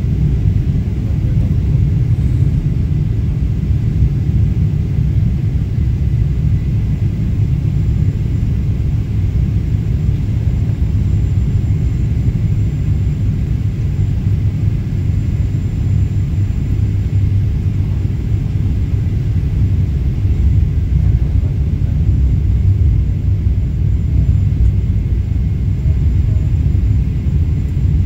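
Steady low rumble of a Boeing 777-300ER's cabin noise during descent, the engines and airflow heard from inside at a window seat.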